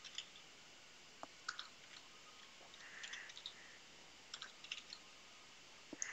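Faint computer keyboard keystrokes: a few scattered clicks and short clusters of key presses.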